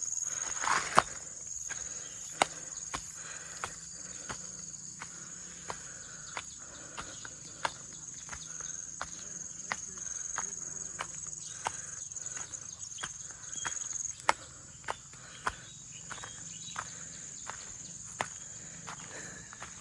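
Insects droning steadily at one high pitch, with sharp clicks about once a second over it.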